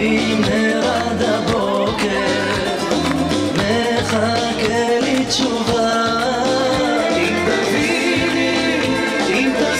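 Upbeat dance music with a singing voice over a steady, driving beat.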